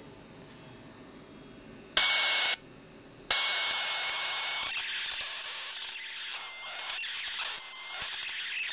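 Home-built Marx generator on a flyback driver sparking across the gap between two alligator clips: a loud, harsh electrical buzz with a high whine in it. It sounds briefly about two seconds in, stops, then runs on from about three seconds in, wavering near the end.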